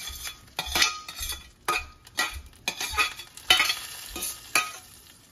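Hot sesame-oil tempering with mustard seeds sizzling as it is tipped from a small steel pan into boiling pepper gravy, while a metal spoon scrapes and taps the pan about twice a second.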